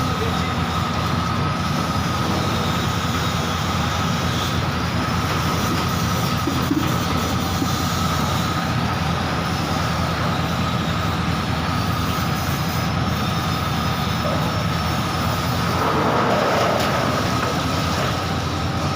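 Stainless steel porang tuber washing machine running, driven by a 2 HP three-phase motor through a WPX worm gearbox: a steady low rumble with a steady high whine over it, growing briefly louder about 16 seconds in.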